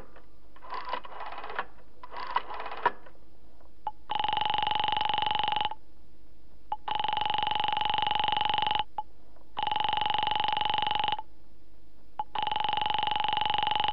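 Telephone ringing on the line: four long, even rings, each about one and a half to two seconds with a shorter gap between, starting about four seconds in. Before them come three faint, short bursts of clicking.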